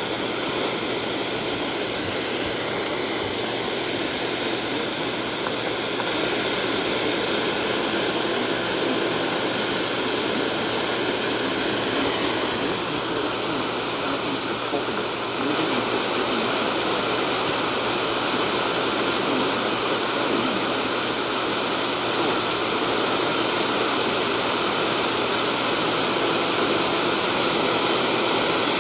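Steady radio static: the hiss of a software-defined radio receiver with no signal to lock onto, with faint steady tones running under it. The hiss shifts a little about twelve seconds in and again around fifteen seconds.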